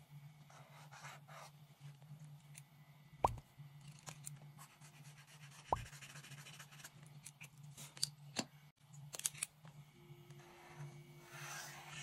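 Paint marker tip scratching over paper as lines are drawn, with two sharp clicks about two and a half seconds apart and a few lighter ticks later. A low steady hum runs underneath.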